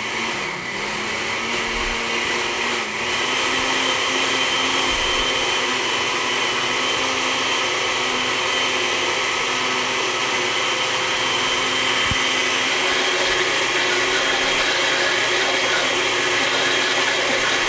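Countertop blender running, blending pitaya purée with cream cheese and sugar. The motor picks up speed at the start, then runs at a steady pitch.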